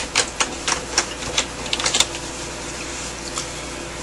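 Typing on a computer keyboard: a quick, uneven run of about a dozen key clicks over the first two seconds as a web address is typed in, then only a steady background hum.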